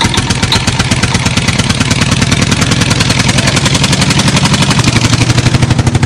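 Small electric motor of a plastic toy washing machine running, its drum spinning with hard candy and dried chilies rattling inside: a fast, even clatter of many knocks a second.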